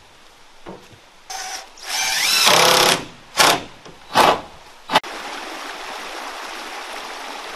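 Power drill driving screws into wooden siding boards: one long run whose pitch rises as the motor spins up, then three short bursts. About five seconds in it gives way abruptly to a steady rushing noise.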